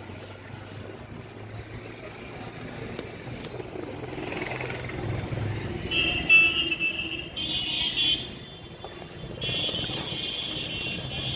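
Strong wind blowing in gusts, with a low rumble that swells about halfway through. High steady tones come and go near the end.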